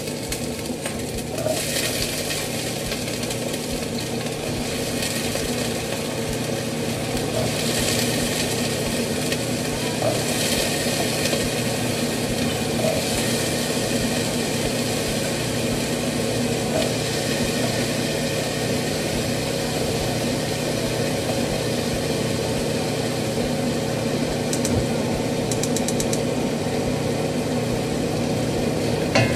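Carrots and potatoes frying in hot oil in a pan: a steady sizzle, over a steady low hum.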